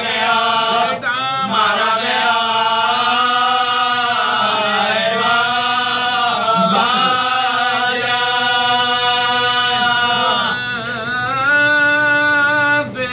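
Men's voices chanting a marsiya, the Urdu elegy for Imam Husain, unaccompanied, drawing out long wavering notes with a change of note near the end.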